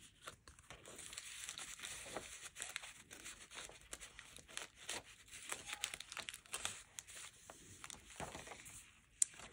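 Soft paper rustling and scraping as a card is slid into a paper pocket in a handmade junk journal and its pages are handled, with many small light clicks and taps.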